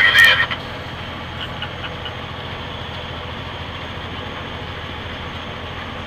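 Steady engine and road noise heard inside a semi truck's cab while cruising on the highway, with a low hum under it. A louder sound cuts off about half a second in.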